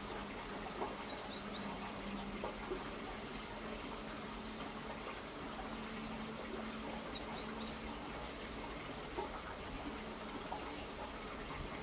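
Outdoor ambience: a steady hiss like running water, with a few short bird chirps now and then and a very high insect drone that comes and goes.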